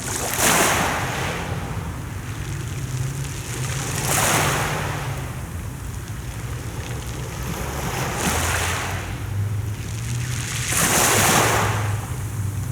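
Sea waves washing onto the shore, four surges of surf about three to four seconds apart, the loudest one near the end.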